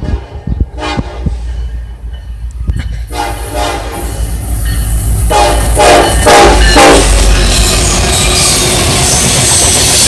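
Norfolk Southern 1073, a GE ES44AC diesel in Penn Central colours, playing its horn in several separate blasts as it closes in and passes, the loudest about five to seven seconds in, over a deep engine rumble. After that comes the steady rolling noise of its freight cars on the rails.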